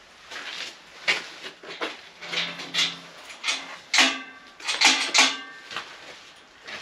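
Steel bar gate being unlatched and opened: a run of metallic clanks and rattles from its lock and latch, loudest and ringing about four to five seconds in as the gate swings open.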